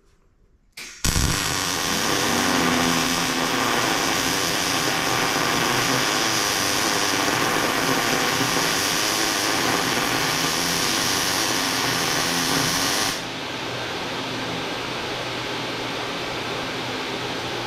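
MIG welding arc crackling steadily for about twelve seconds, starting about a second in, together with a Lincoln Electric mini fume extractor's fan, switched on automatically by the welding current and running on its low setting. When the arc stops the fan keeps running at a lower steady level.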